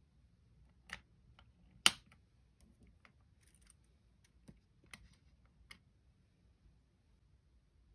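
A few short, sharp plastic clicks and taps as a clear plastic compartment organiser box of nail charms is handled and moved across a tabletop. The loudest click comes just under two seconds in, and several lighter clicks are scattered after it.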